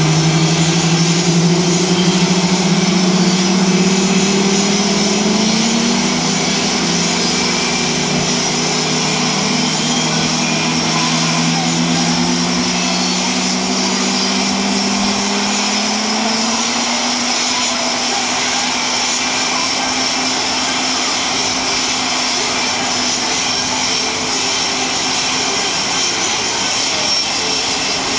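Several F/A-18 Hornets' General Electric jet engines running on the ramp for pre-flight checks: a loud, steady jet roar and hiss. Low engine tones climb slowly over the first half as the engines spool up, then hold steady.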